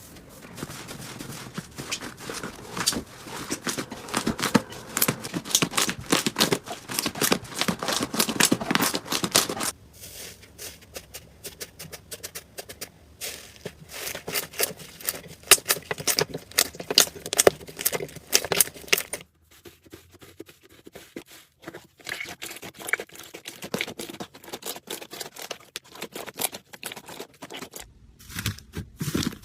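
Slime being squeezed and poked by hand, with dense crackling and popping. The texture changes abruptly about ten seconds in, again near twenty seconds, and just before the end, as one clip cuts to the next.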